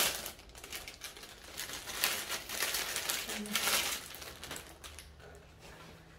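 Plastic packaging crinkling and rustling in irregular bursts as an item is handled and unwrapped, quieter in the last two seconds.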